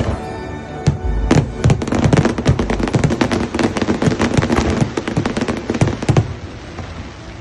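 A rapid barrage of fireworks bursts and cracks, many a second, over music. The barrage thins out about six seconds in.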